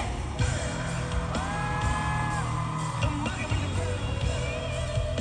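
Live pop concert music over a big sound system, with a heavy bass beat and a singer holding long, gliding notes, and yells from the crowd.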